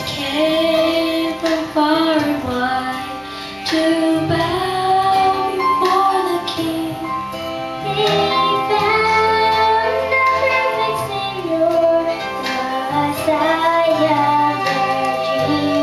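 Children's choir singing a song through microphones, with instrumental accompaniment carrying a low bass line underneath.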